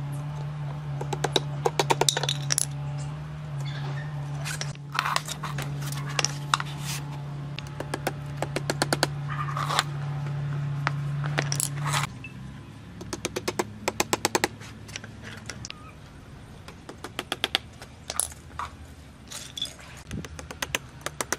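Light metallic tapping and clinking from small hand tools and bauble hooks while Christmas ornaments are fixed to a wooden tree, coming in quick runs of several taps. A steady low hum underneath drops away about twelve seconds in.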